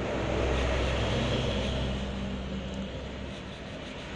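A steady low motor hum that fades out about three seconds in.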